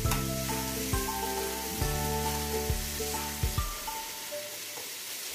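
Vegetables sizzling in a hot stainless steel frying pan as they are turned with metal tongs, over background music.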